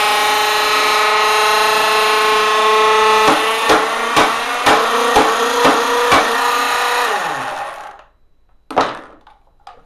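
Presto Salad Shooter's electric motor running with a steady whine while a metal piece it cannot cut spins round inside, knocking about twice a second from roughly a third of the way in. The motor then winds down to a stop, and a single sharp metallic clatter follows.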